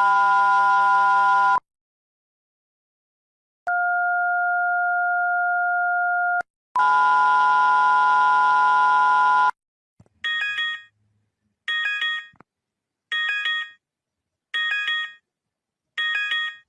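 Emergency alert attention tones, electronic and steady. A chord of steady tones stops about a second and a half in. After a pause comes a steady two-pitch tone of under three seconds, then another steady chord of about three seconds. After that a short, high, warbling electronic chirp repeats about every second and a half, five times.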